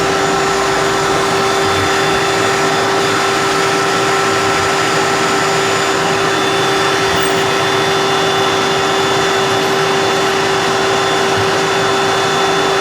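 Shop vacuum running steadily, a constant rushing noise with a steady whine.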